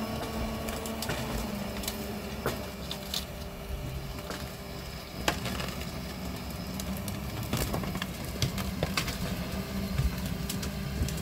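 Forwarder's diesel engine running steadily, with frequent sharp cracks and knocks of wood, the loudest about five seconds in.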